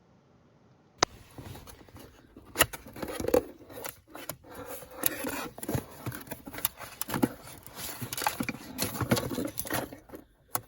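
Small parts being handled: scattered clicks and taps with scraping, rustling noise, starting with a sharp click about a second in.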